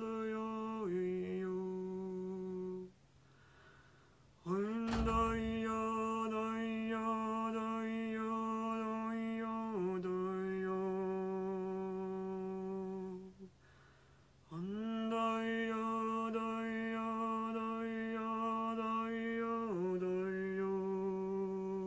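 A woman's wordless voice toning long held notes in a repeated two-note phrase: each note is held about five seconds, then steps down to a slightly lower note for a few seconds before breaking off for a breath. The phrase is sung twice after the end of an earlier one. A single sharp knock comes about five seconds in, as the second phrase starts.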